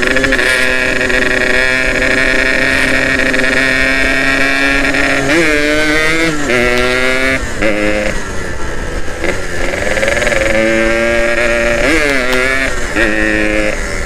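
Yamaha RX-King's two-stroke single-cylinder engine running as the bike is ridden. It holds a steady note for about five seconds, then rises and falls in pitch several times as the throttle is opened and eased off.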